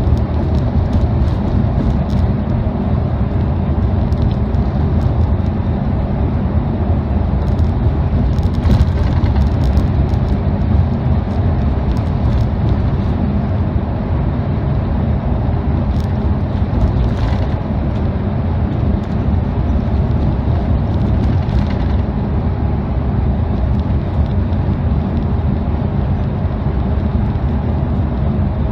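Steady engine and tyre rumble inside the cabin of a V/Line Speedlink coach travelling at highway speed. A few faint clicks or rattles come through about a third of the way in and again around the middle.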